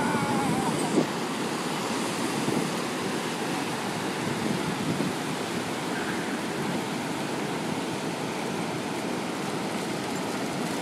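Ocean surf breaking and washing up the shore, a steady rushing, with a brief knock about a second in.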